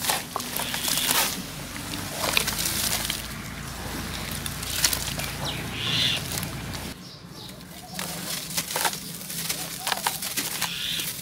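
Hands crumbling dry dirt chunks into a basin of water: powder pouring and splashing in, and the muddy water sloshing as it is stirred, in irregular bursts with a brief lull about seven seconds in.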